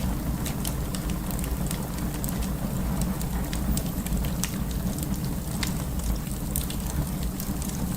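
Burning wood in a fireplace crackling, with frequent irregular sharp pops over a steady low rumble of the flames.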